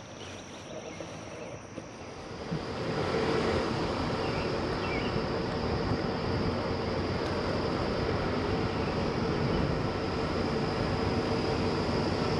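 Crickets chirping steadily. About two and a half seconds in, a car's engine and road noise rise and then hold steady as it drives along.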